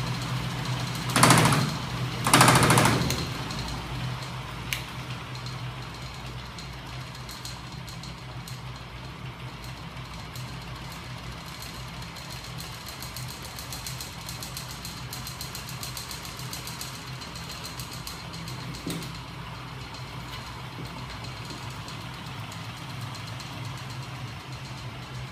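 Home-built magnet-motor machine of electric motors, flywheels and spring-loaded levers running with a steady hum and a fast mechanical rattle. Two loud clattering bursts come about a second in and again at about two and a half seconds, after which the running settles a little quieter.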